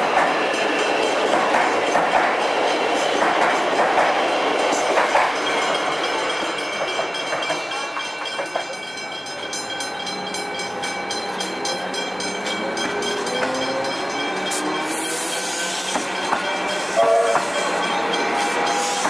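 Melbourne Metro electric suburban train running along the platform, its wheels clicking over the rail joints. Later an electric train pulls away with a traction-motor whine that rises in pitch toward the end, and a level-crossing bell rings repeatedly in the middle.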